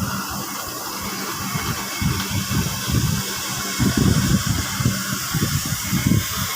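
CNC cutting torch hissing steadily as it cuts through 25 mm steel plate, with an uneven low rumble underneath that grows heavier about four seconds in.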